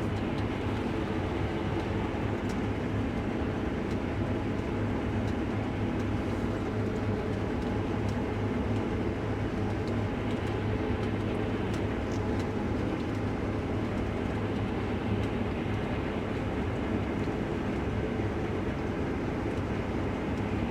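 Case combine harvester running steadily while cutting wheat: a constant engine and threshing-machinery drone with no change in speed.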